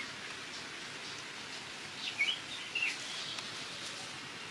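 Steady outdoor hiss, with a few short high chirps about two seconds in.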